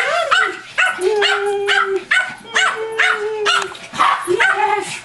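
Excited dogs whining and yipping: a quick run of short rising-and-falling yelps mixed with two longer held whines, the sound of dogs greeting their owner.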